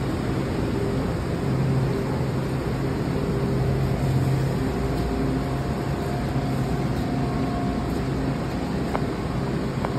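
Washington Metro train's steady low hum and rumble, with a faint higher tone in the middle.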